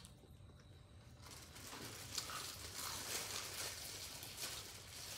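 Close-miked crunchy chewing of a mouthful of food: a dense crackle of fine crunches that sets in about a second in and grows louder, over a steady low hum.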